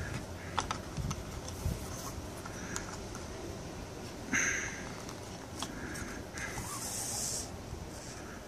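Nylon paracord being handled and pulled through a weave by hand: a few light taps and clicks in the first couple of seconds, then short swishing hisses of cord sliding against cord, one about four seconds in and a longer one around seven seconds.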